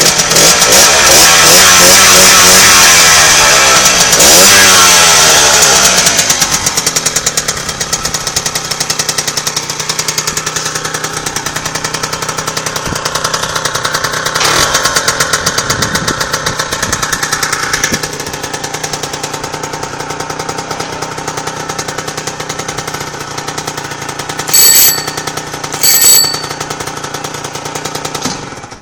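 Zündapp GTS 50 moped's 50 cc two-stroke single-cylinder engine, revved up and down several times in the first few seconds, then idling with a fast, even pulse. Two short, loud, high-pitched beeps come near the end, and the engine is switched off just before the end.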